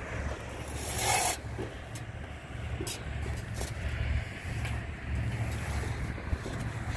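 Wind buffeting the phone's microphone, a steady uneven low rumble, with a short loud hiss about a second in and a few light clicks after it.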